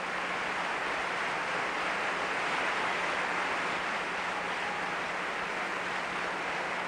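Concert audience applauding steadily, a dense even clapping that neither builds nor fades.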